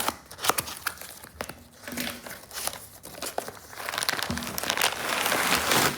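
Packaging being unwrapped by hand: scattered crinkles and crackles, then a louder, continuous crinkling rustle from about four seconds in.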